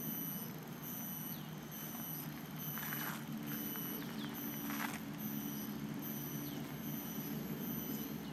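Outdoor background sound: a steady low hum under a high-pitched tone that pulses on and off about every 0.7 seconds, with a few short chirps and a couple of brief rustles.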